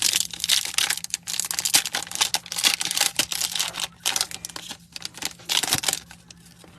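Foil trading card pack wrapper being torn open and crinkled in the hands, an irregular dense crackling that dies down about six seconds in.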